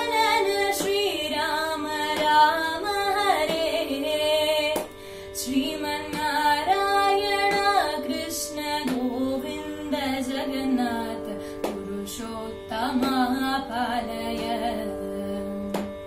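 A woman's solo voice singing a devotional Rama bhajan in Carnatic style, with ornamented gliding notes over a steady sustained drone.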